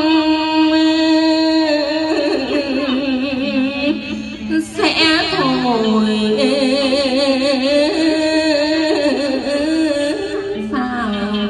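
Ca trù ngâm cổ thi: a woman chanting a classical Tang-style poem in long held notes with a wavering vibrato, over the plucked đàn đáy long-necked lute. New phrases start about five seconds in and again near the end.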